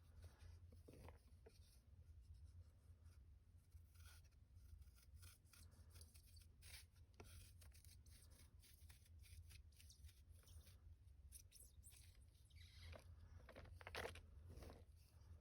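Reformed gym chalk block being crushed and crumbled by hand: soft, irregular crackles and crunches, busier and louder near the end.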